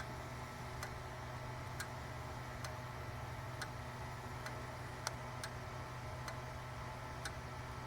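Grandfather clock ticking steadily, about one tick a second, from its pendulum and escapement, over a faint steady low hum.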